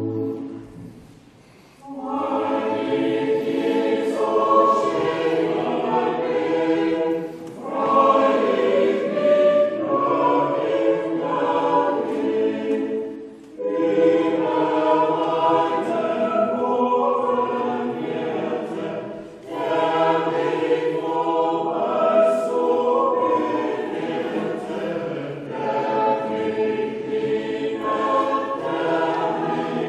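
Mixed church choir singing a hymn, starting about two seconds in after a held chord ends, in phrases broken by short breaths roughly every six seconds.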